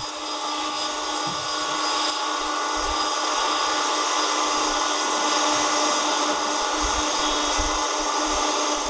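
Jet engines of a Northern Air Cargo twin-jet freighter taxiing past: a steady turbine whine with several held tones over a rushing hiss, growing louder over the first couple of seconds, then holding.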